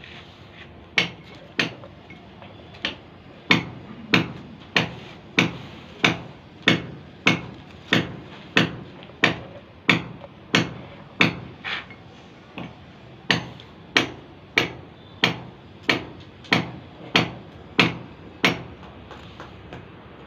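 A hammer striking repeatedly in an even rhythm, about three blows every two seconds, with a short break about two-thirds of the way through.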